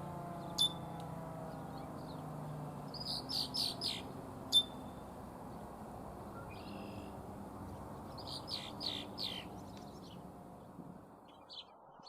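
Songbirds chirping in short bursts, a cluster about three seconds in, a sharp single chirp soon after and another cluster near the end. Under them, the faint low drone of the Thunderbolt 1003B siren slowly falls in pitch and fades away in the first few seconds as it winds down.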